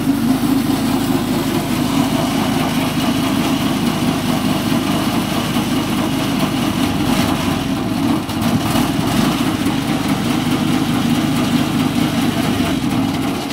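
Engine-driven chaff cutter running steadily under power.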